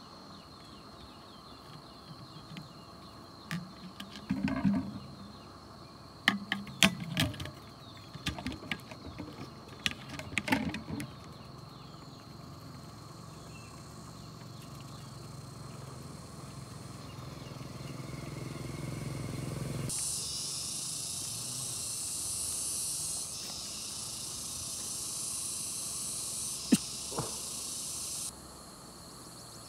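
Outdoor insect sound: a faint steady high insect tone throughout. A loud, high, hissing insect drone, typical of cicadas, starts abruptly about twenty seconds in and cuts off about eight seconds later. Earlier, in the first ten seconds or so, there are scattered sharp clicks and knocks from handling.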